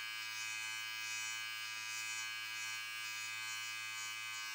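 Philips 6-in-1 3000 series multigroom trimmer running steadily: an even electric buzz with a high whine.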